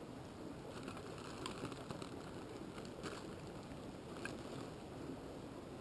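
A clear plastic bag crinkling in someone's hands in a few short bursts, over a steady hiss.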